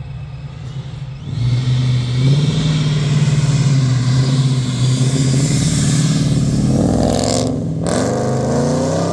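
Supercharged 427-cubic-inch LS V8 with a Procharger revving up about a second in and holding at high revs, loud, with a high supercharger whine above the engine note. The revs waver near the end.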